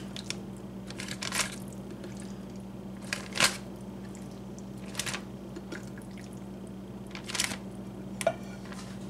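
Plastic zip-top bag crinkling and pickle-juice brine squishing as hands settle raw chicken thighs into the marinade: several short rustles spread apart, over a steady low hum.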